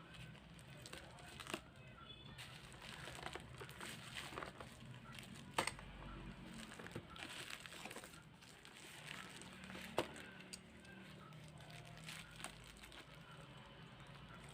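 Product packaging being handled: faint crinkling and rustling, with a few sharp clicks, the loudest about five and ten seconds in.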